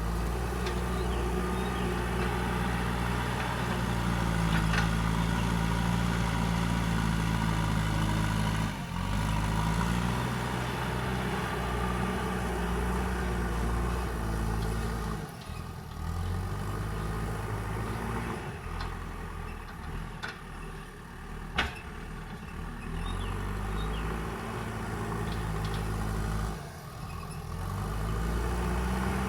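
Diesel engine of a JCB backhoe loader working, its pitch repeatedly rising and falling as the load on the engine changes. A single sharp knock sounds about two-thirds of the way through.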